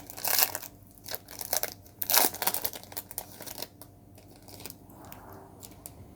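Wrapper of a 2019 Topps Series 1 baseball card pack being torn open and crinkled, in several rustling bursts over the first four seconds, loudest just after the start and about two seconds in, then only faint handling.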